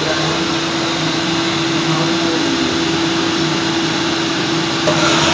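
CNC machine running: a steady whirring noise with a constant hum-like tone.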